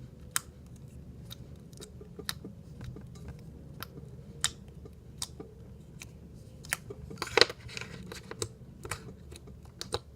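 Slime being worked in the hands, making irregular sharp clicks and pops as air pockets burst, with a louder burst of crackling about seven seconds in.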